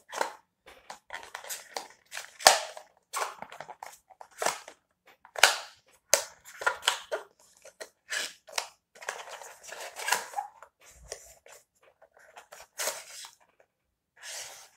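A cardboard phone box being handled and picked through by hand: irregular rustling and crinkling scrapes, with a sharp click about six seconds in.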